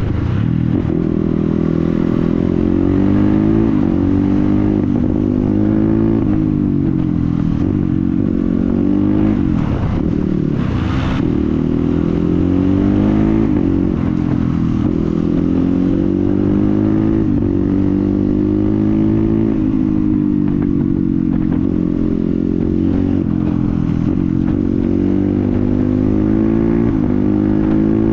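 Dirt bike with a loud exhaust running under way, the engine pitch repeatedly climbing as it accelerates and then dropping back as it shifts up or rolls off. A brief rushing noise comes about eleven seconds in.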